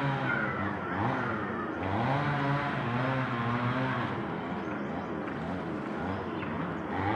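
A motor engine running nearby, its pitch rising and then holding steady over and over, as when it is accelerating.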